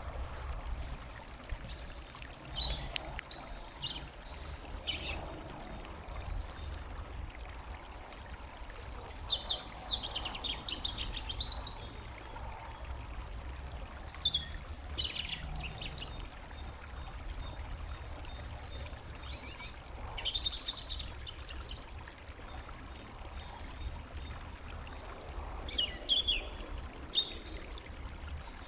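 Small songbirds singing and chirping in short bursts of quick high notes every few seconds, over a steady low rumble.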